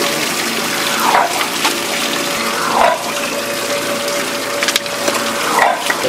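Steady rushing of flowing water.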